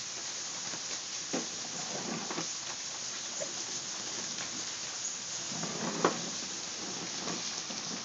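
Steady rain falling on a wooden deck, with a few faint knocks about a second in, around two seconds in and about six seconds in.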